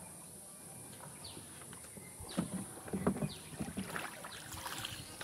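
Water splashing and dripping beside a small wooden boat as a cast net is hauled back in by its rope, in irregular splashes that start about two seconds in. A steady high-pitched hiss runs underneath.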